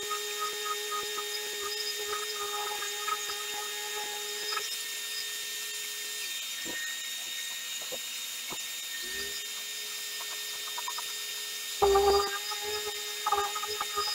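Random orbital sander on a dust-extraction hose sanding the old finish off a wooden chest. It runs against the wood for the first few seconds, then winds down. It spins back up about nine seconds in and bites into the wood again near the end. A steady high-pitched hum runs underneath throughout.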